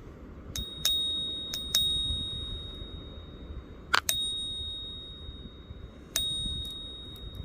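American Silver Eagle, a fine-silver bullion coin, tapped about five times. Each tap is followed by a clear, high, steady ping that fades over a second or two. This long ring is the ping test's sign of genuine silver.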